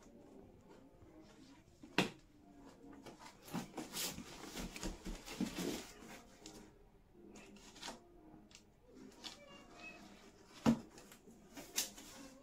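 Cardboard box being handled and opened by hand, with rustling and scraping of cardboard and packing tape. A sharp knock comes about two seconds in and two more near the end.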